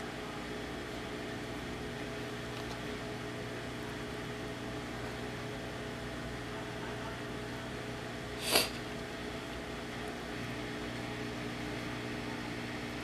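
Dishwasher running with a steady hum of several held tones. A single sharp click about two-thirds of the way through.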